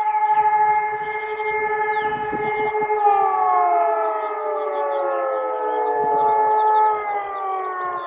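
Civil-defence sirens sounding a test alarm, holding a steady wailing tone. About three seconds in, one siren slowly winds down in pitch, and the others start falling near the end. Faint bird chirps are heard over them.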